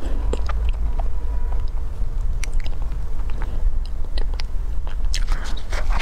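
Close-miked eating of a chocolate-coated cake: biting and chewing with many small wet mouth clicks and crackles, over a steady low rumble.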